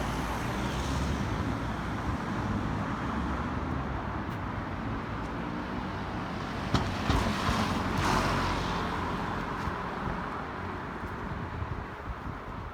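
Urban street ambience with road traffic running steadily; a vehicle passes loudest about eight seconds in, just after a sharp click.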